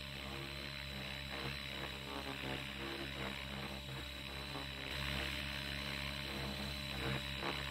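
RC helicopter flying tic-tocs: its rotor and motor hum steadily with a thin high whine over a rushing noise, with small swells as it rocks between nose-up and level.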